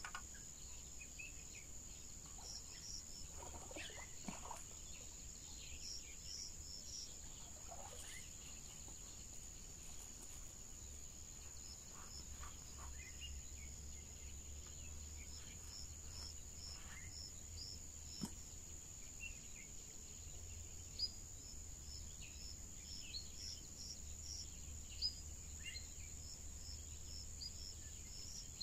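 Quiet lakeside ambience: insects give a steady high-pitched drone, with scattered short bird chirps over it and a low rumble underneath. A few faint clicks and rustles come from fishing tackle being handled.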